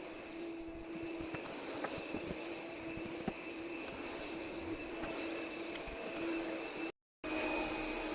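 Vacuum cleaner running steadily, with a few light knocks, cut off briefly about seven seconds in.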